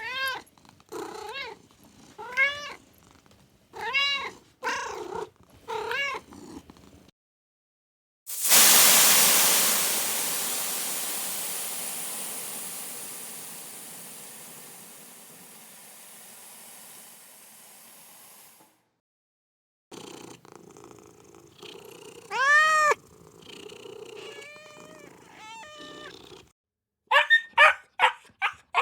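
A cat meowing again and again, in separate drawn-out calls. In the middle a loud rushing noise starts suddenly and fades away over about ten seconds. Then more meows follow, and near the end a dog starts yapping in quick succession.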